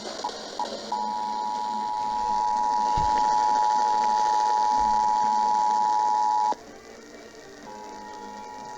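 Emergency Alert System attention signal: the two-tone alert (853 and 960 Hz together) heard over broadcast audio. It stutters in a few short blips, then holds steady for about five and a half seconds and cuts off suddenly. It starts again, quieter, about a second later.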